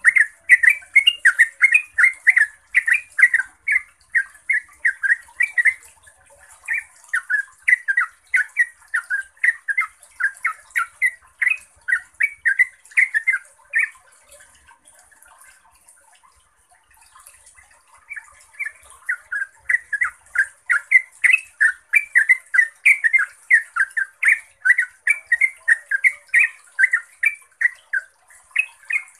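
Yellow-vented bulbul singing its long run-on song, a fast string of short chattering notes about three to four a second. The song breaks off about halfway through for a few seconds, then picks up again.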